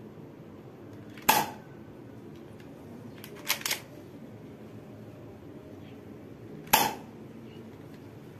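Upgraded spring-powered Glock 18 alloy airsoft pistol fired twice, a sharp snap about a second in and another near the end. Between the shots come two lighter quick clicks, the slide being racked to re-cock the spring.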